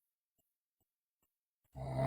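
Near silence, then near the end a sleeping girl's loud snore starts abruptly.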